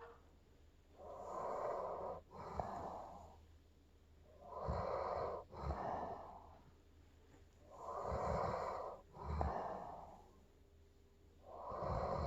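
Old dog snoring in its sleep: slow, noisy breaths, each in two parts, a longer sound then a shorter one, coming about every three and a half seconds. Three full breaths, and a fourth starts near the end.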